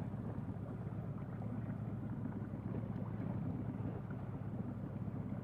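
Sailboat's engine running steadily, a low even hum.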